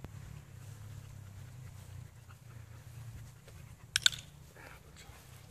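A Belgian shepherd–husky mix dog panting as it walks at heel on a leash, over a steady low rumble. A short, sharp, high-pitched squeak about four seconds in.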